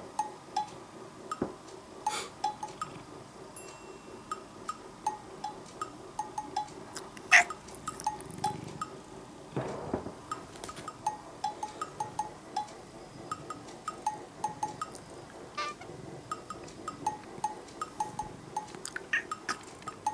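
Light, bouncy background music of short plinking percussion notes in a steady rhythm, with a single sharp knock about seven seconds in.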